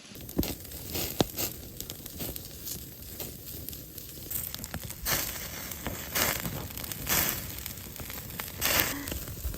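Wood fire crackling and popping under a grill of sizzling pork belly, with irregular sharp pops over a steady hiss.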